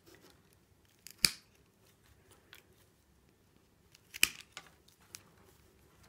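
Secateurs snipping off the ends of green willow rods poking out of the weave. Two sharp cuts, about a second in and again about four seconds in, with a few lighter clicks around each.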